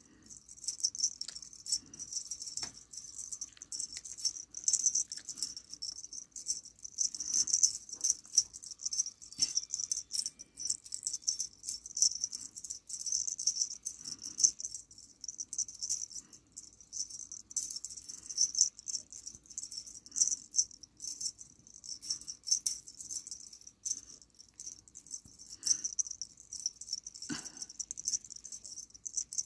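The metal parts of a feather wand cat toy jingling and rattling in uneven bursts as the toy is waved about and batted by a kitten.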